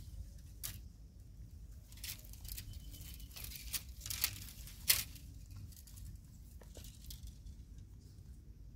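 Thin sapling branches and leaves rustling and crackling as a young macaque climbs and swings on them: scattered short snaps and crinkles, the sharpest about five seconds in, over a low steady rumble.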